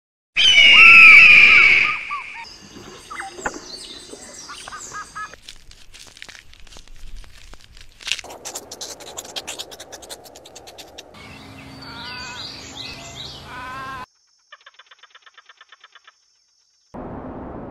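A crested serpent eagle gives a loud, high, whistling scream in the first two seconds. A run of separate cut-together sounds follows: chirping calls, a stretch of crackling clicks, wavering calls, and a quick pulsing rattle near the end.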